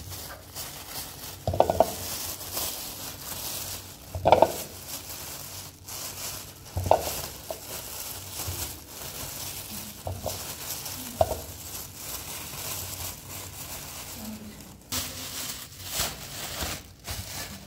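Food sizzling as it fries in a pan, with a utensil stirring and scraping in the pan every few seconds.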